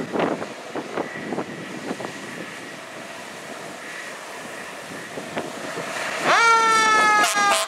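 Fire truck approaching with wind buffeting the microphone. About six seconds in, its siren winds up sharply and is loudest for about a second, then its pitch slowly falls.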